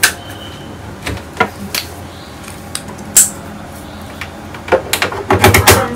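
Scattered clicks and knocks of audio cable plugs being handled and pushed into the jack sockets of a Phaselab Live 12 mixer, with a quick flurry of them near the end.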